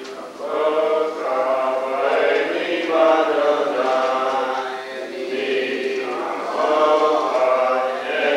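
Voices chanting a prayer melody together, with long held notes, starting about half a second in.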